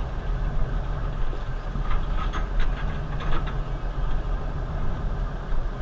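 Fishing boat's engine idling, a steady low rumble under the drifting boat.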